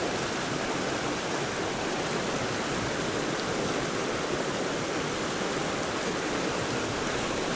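Creek water rushing over rocks in shallow rapids, a steady even rush.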